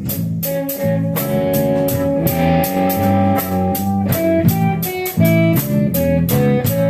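Blues band playing an instrumental passage between vocal lines: lead guitar notes, some bent, over bass and a steady drum-kit beat.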